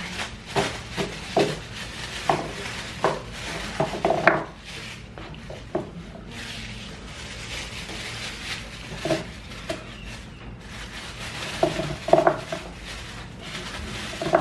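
Dishes and cutlery clinking and clattering in short, irregular knocks as tableware and leftover food are gathered up. The knocks bunch together about four seconds in and again near the end, where they are loudest.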